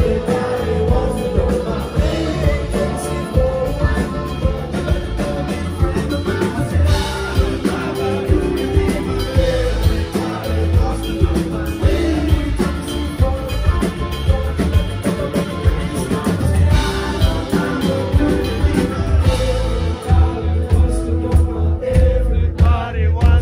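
Live rock band playing with a lead singer: drums, guitar and keyboards under a sung vocal line, with a steady heavy beat.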